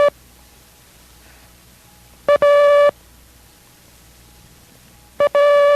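Morse code letter A, dit-dah, sent as a steady audio tone: one short beep followed at once by a longer one. It is heard twice, a little over two seconds in and again near the end, with the end of a previous dah right at the start.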